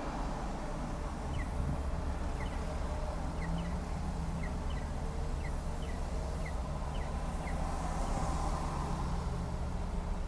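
Steady low rumble of road traffic and a car in motion, with a run of short, high chirps, one or two a second, through the first two-thirds.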